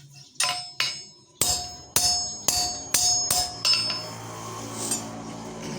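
A hammer striking steel rod about eight times, roughly two blows a second, each blow ringing metallically. The hammering stops at about four seconds in.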